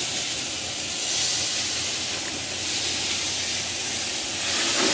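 Beef sizzling on the hot grate of a portable camping-gas grill: a steady hiss.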